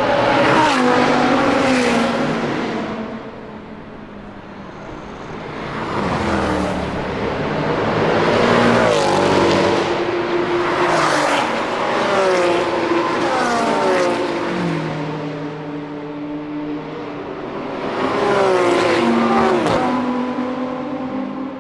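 A string of supercars driving past at speed, a McLaren 650S first and then a group that includes a Porsche 911 GT3 and a Ferrari 458. There are about four loud passes, with a lull about four seconds in. Each engine note climbs and then falls away in steps as the car goes by and changes gear.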